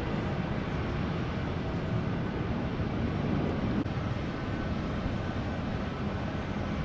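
Steady low rumble of vehicle noise, with a faint low hum that comes in about six seconds in.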